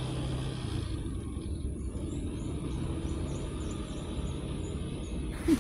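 Steady low outdoor rumble, with faint high chirps in the middle and a short, loud sound of falling pitch at the very end.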